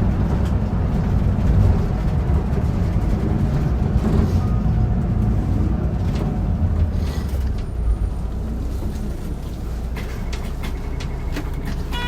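Cabin sound of a Hino Blue Ribbon city bus (QKG-KV234L3) on the move: a steady low rumble of its four-cylinder turbo diesel and automatic drivetrain. The bus is one marked as making an abnormal noise. Faint high tones and clicks come in near the end.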